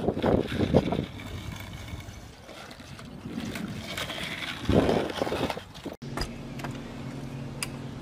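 Skateboard wheels rolling on asphalt, louder near the start and again about five seconds in. About six seconds in the sound cuts off abruptly and gives way to a steady low hum.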